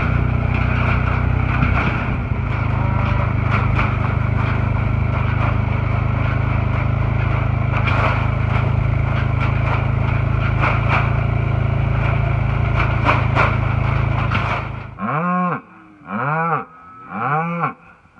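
A vehicle engine runs steadily and cuts off abruptly about three-quarters of the way through. It is followed by cattle mooing in short calls, about one a second.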